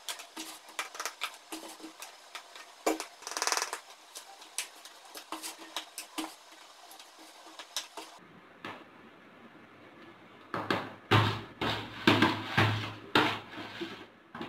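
A spoon clinking and tapping at the neck of a plastic bottle as mango pickle is spooned into it. From about ten seconds in come louder, repeated strokes as the spoon scrapes pickle around a plastic basin.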